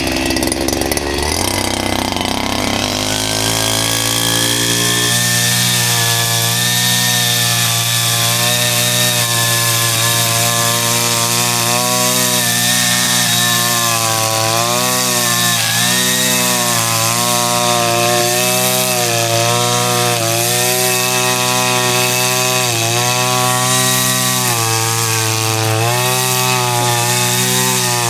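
Small pull-start gas engine running, speeding up over the first few seconds and then held at high revs, with brief dips in speed now and then.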